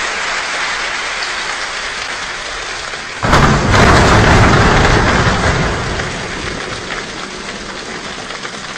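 A large choir imitating a rainstorm with body percussion: a steady patter like rain, then a sudden loud rumble like thunder about three seconds in, which slowly dies back down to the patter.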